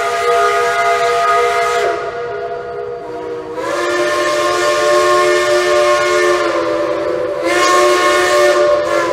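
Steam locomotive whistle blowing a long chord of several tones over a hiss of steam. The chord sags about two seconds in, comes back strong about a second and a half later, shifts down again past the middle, and swells louder and hissier near the end.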